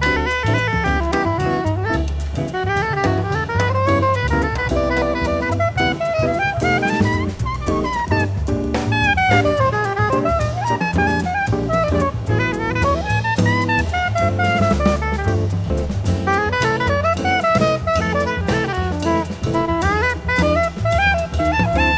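Modal jazz ensemble playing: drum kit and bass keep a steady groove under a winding, pitch-bending melodic solo line.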